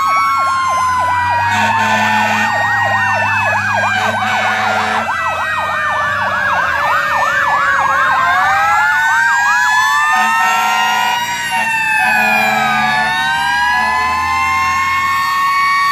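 Several emergency vehicle sirens, from fire trucks and an ambulance, sounding at once: slow rising-and-falling wails overlap a fast yelp that runs for the first half and then gives way to the wails.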